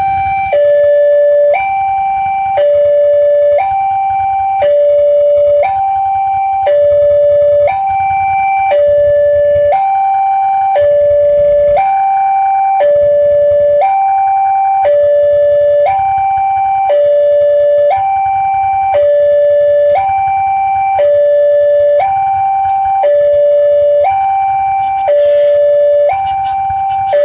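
Railway level-crossing warning alarm sounding an electronic two-tone high-low chime, each tone held about a second and repeating steadily, with a low rumble underneath.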